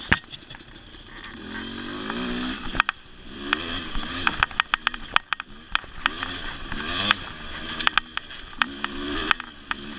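Dirt bike engine revving up and falling back in short bursts of throttle, about four times, as the bike picks its way over a rocky trail. Many sharp clacks and knocks come in between as the bike bounces over rocks.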